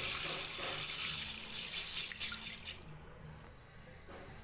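Dry basmati rice poured into a steel bowl of water, a steady splashing rush of grains hitting the water that stops about three seconds in.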